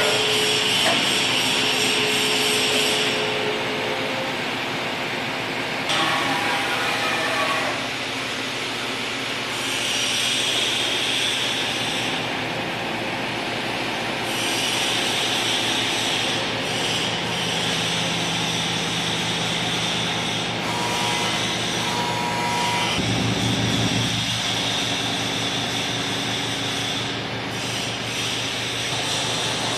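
Toshiba TMD 13 CNC vertical boring mill running: a steady mechanical drone with a hiss over it, some steady tones switching on and off, and a short low rumble about three quarters of the way through.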